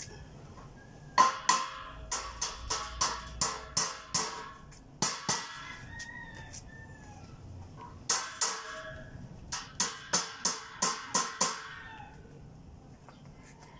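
A hand tool tapping a steel gate frame in quick runs of metal-on-metal strikes, about three or four a second, each with a short metallic ring; there are two longer runs and two brief pairs.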